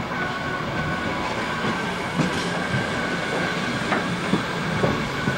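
Train rolling slowly on track, its wheels clicking over rail joints about five times at uneven intervals, over a steady rolling noise.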